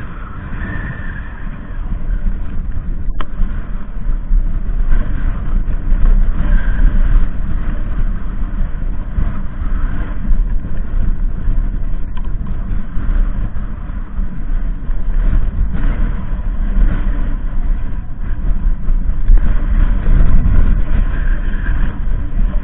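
Wind buffeting the action camera's microphone: a heavy, low rumble that swells and fades unevenly and grows stronger about two seconds in.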